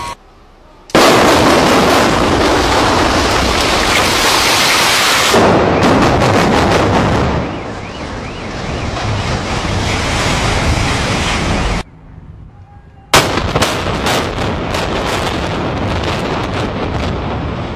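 Building implosions: about a second in, a sudden loud blast of explosive demolition charges, then a string of sharp cracks and the long rumble of the structure coming down, cut off abruptly about 12 seconds in. About a second later a second implosion starts with a loud crack, more rapid charge detonations and a collapse rumble.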